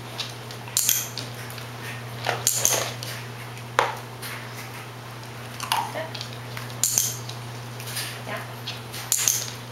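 A handful of sharp clicks a second or two apart from a dog-training clicker, mixed with light clinks of a dog's studded collar and taps of its claws on a hardwood floor, over a steady low hum.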